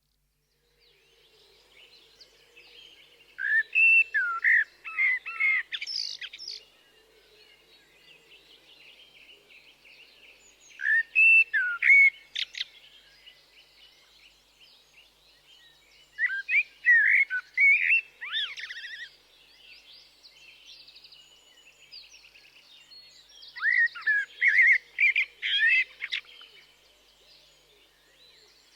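Common blackbird (Turdus merula) singing: four warbling, fluty phrases a few seconds apart, each ending in higher, thinner notes. Fainter bird twittering carries on between the phrases.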